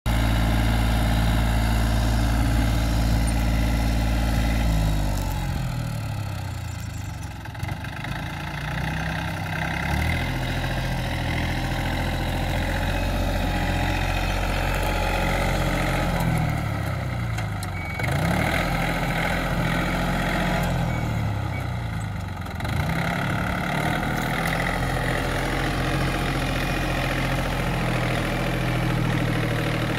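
Yanmar F200 compact tractor's diesel engine running while it drives a rotary tiller through the soil. The engine runs steadily at first, then its pitch sags and recovers three times as it comes under load.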